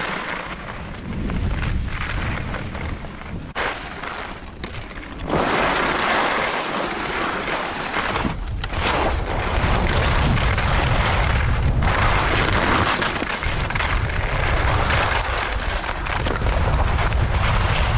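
Skis running and scraping over hard-packed groomed snow, mixed with wind rushing over the microphone; the noise gets louder about five seconds in and dips briefly a few times.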